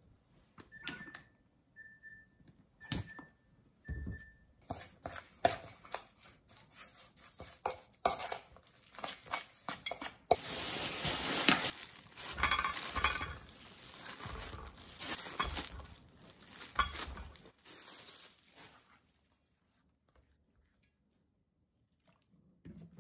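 A metal spoon tapping a stainless steel mixing bowl about four times, each tap ringing briefly. Then the spoon scrapes and stirs thick gochujang marinade in the bowl, with rustling and handling as pork belly slices are laid in.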